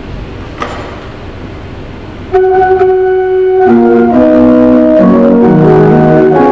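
Church pipe organ starting to play about two seconds in, loud held chords moving from note to note. Before it there is only quiet room noise with one light click.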